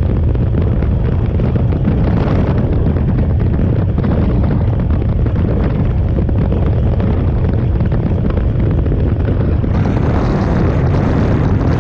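KTM 890 Adventure R motorcycle under way: a steady roar of engine and wind buffeting the microphone. About ten seconds in, the sound gets brighter and fuller in the upper range.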